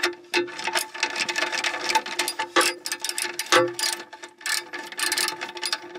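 Ratchet clicking in irregular runs as a red-handled driver with a socket turns a rusty, stubborn nut off a wiring terminal stud.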